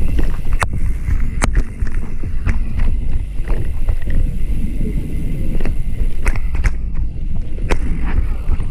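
Heavy wind rumble on the microphone, with frequent sharp, irregular clicks and knocks over it.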